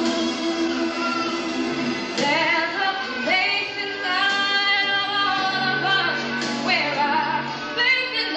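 Music with a woman singing long held notes that slide up and down between pitches.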